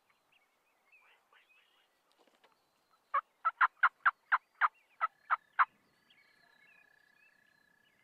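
Turkey calling: a loud run of about ten sharp notes, about four a second, starting about three seconds in, with a faint steady high tone after it.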